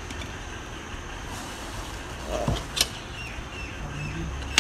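Steel tyre lever being worked against a motorcycle tyre bead and alloy rim: a short dull scrape a little over two seconds in, then a sharp click just before three seconds and another at the very end, over a steady low hum of distant traffic.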